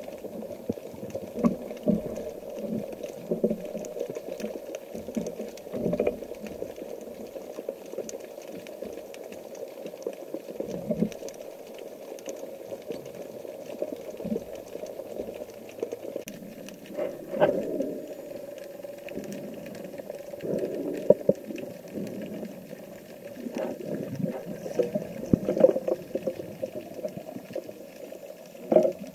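Underwater sound picked up by a camera in its waterproof housing as a spearfisher swims and dives: a muffled, steady wash of water with bubbling. Scattered knocks come through, the plainest ones about two-thirds of the way in and near the end.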